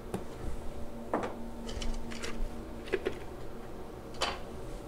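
A few scattered light clicks and knocks of things being handled, over a low steady room hum.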